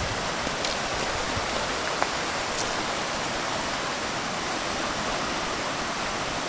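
Steady, even rush of falling water from waterfalls along a fast river, with a few faint clicks.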